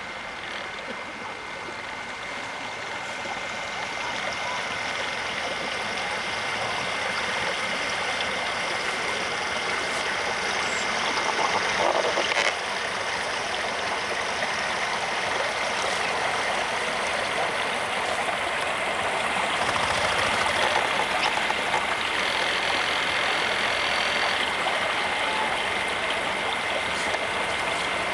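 Steady rush of running water, growing louder over the first several seconds and then holding level. A thin, steady high whine runs through it.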